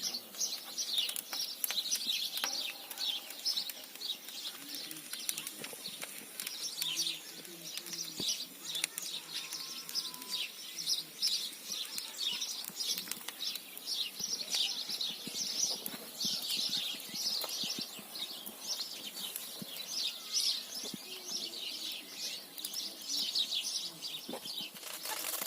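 A chorus of small birds chirping: rapid, overlapping high chirps that keep on without a break.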